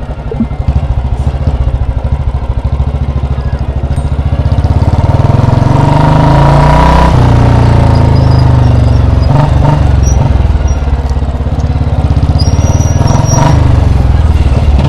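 Royal Enfield Bullet 350's single-cylinder four-stroke engine running under way, its even exhaust beat growing louder from about four seconds in as the bike is accelerated.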